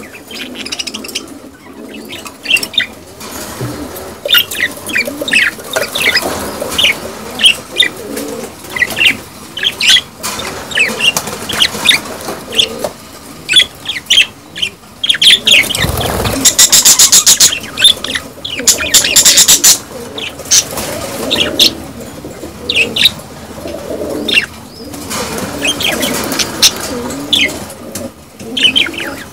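Budgerigars chattering in many short, high chirps and warbles, the calls of a breeding flock with a pair mating. About halfway through comes a loud stretch of rapid wing flapping lasting a few seconds.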